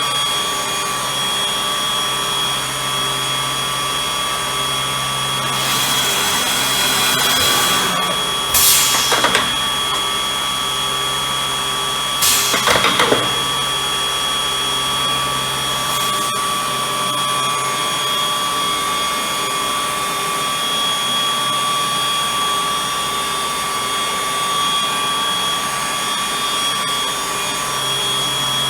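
Router spindles of a Bacci FC8CNC eight-head CNC contouring machine running with a steady high whine. It rises twice into short, louder bursts of cutting into wood, about a third of the way in and again a few seconds later.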